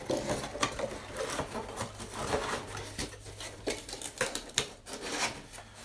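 Cardboard Funko Pop boxes being handled and moved about, giving an irregular run of light taps, scrapes and rustles.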